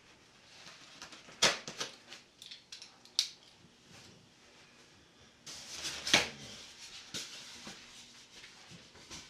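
Packaging being handled inside a large shipping box: scattered rustles and scrapes of cardboard and foam with a few sharp knocks, the loudest about a second and a half in, about three seconds in and about six seconds in.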